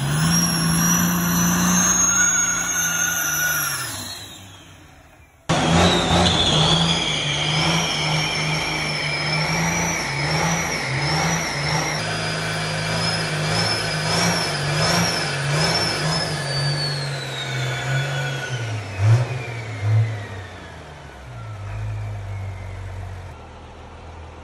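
A rat-rod truck's engine held at high revs during a burnout, with a wavering high-pitched tyre squeal over it. Two loud thumps come near the end, then the engine drops to a lower, quieter idle.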